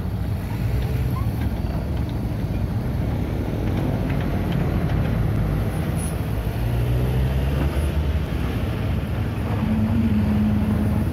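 Hitachi EX130 amphibious excavator's diesel engine running steadily as the machine travels on its pontoon tracks, a low continuous rumble. About nine and a half seconds in, a steadier, higher hum joins the engine sound.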